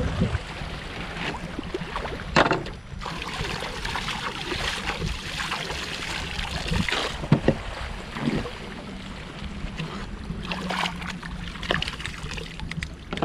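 Shallow seawater sloshing and splashing, with scattered knocks and clicks over a low steady hum.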